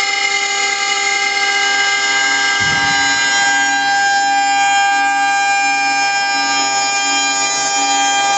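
A CNC wood router's 1.5 kW spindle runs at speed with a steady whine of several tones while a 6 mm two-flute end mill cuts the workpiece out of solid beech along vectors. About three seconds in, a low pulsing hum joins it at roughly two beats a second.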